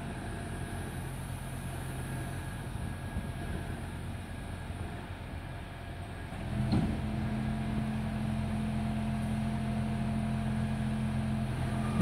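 Scania refuse truck's diesel engine running while its hydraulic loader crane hoists an underground waste container. About six and a half seconds in there is a knock and the engine note steps up to a louder, steadier hum, as it does when the engine is sped up to drive the crane's hydraulics.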